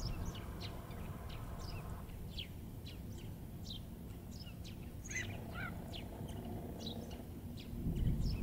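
Eurasian tree sparrow chirping: a stream of short, quick chirps, with a few lower curling notes about five seconds in, over a low rumble of wind.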